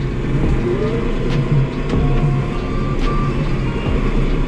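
Tractor's diesel engine running steadily, heard from inside the cab while towing a trailer along a rough farm track, with a few short knocks and rattles.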